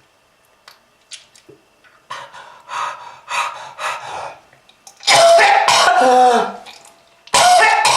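A person coughing: first a run of short, breathy coughs, then two loud voiced coughing fits whose pitch falls, about five seconds in and just before the end.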